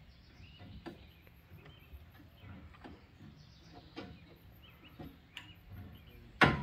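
Birds chirping outdoors over scattered light clicks and knocks from hand work in a boat's engine bay, with one loud sharp knock near the end.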